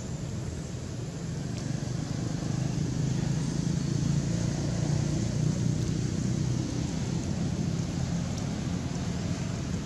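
Steady low rumble with an even hiss over it, swelling slightly in the middle, with no distinct animal calls.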